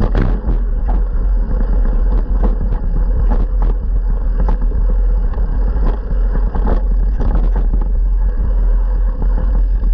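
Mountain-bike descent on a rough dirt trail: steady low wind rumble on the microphone from riding speed, with frequent knocks and rattles as the bike goes over roots and bumps.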